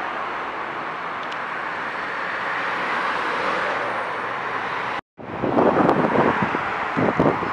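Steady rolling noise of an ICE high-speed train passing on the tracks for about five seconds. After a short break, louder gusts of wind buffet the microphone.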